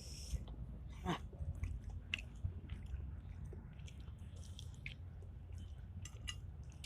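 A person chewing food close to the microphone, with small scattered wet mouth clicks over a low hum.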